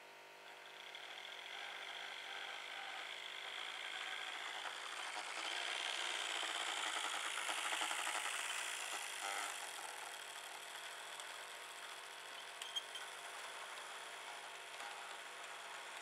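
Model train running on the track: the locomotive's small electric motor whirring and its wheels rattling on the rails, growing louder as it approaches and loudest around the middle as it passes close by, then the coaches rolling past more steadily. A sharp double click about three quarters through.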